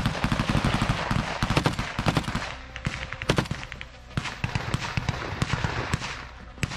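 Bursts of close automatic gunfire, rapid shots running together with louder single cracks among them, easing off near the end.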